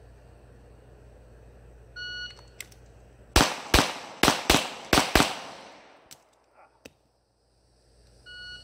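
An electronic shot-timer beep, then about a second later six pistol shots fired in three quick pairs over about two seconds. A second timer beep sounds near the end.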